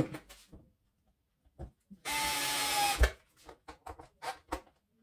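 A cordless screwdriver's motor runs for about a second, about two seconds in, driving a screw into a soft rubber mount. It is left only lightly tightened, and its tone drops a little as it stops. Small clicks and knocks of the screwdriver and parts being handled come before and after.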